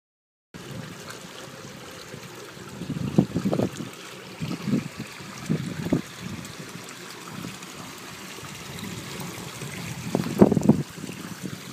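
Steady rush of running water at a sewage works' settlement tanks, starting about half a second in, with several irregular gusts of wind buffeting the microphone.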